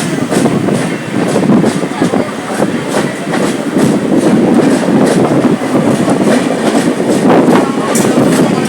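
Passenger coaches of an express train running past close by: steady rail rumble with repeated clicking and clatter as the wheels pass over the rail joints.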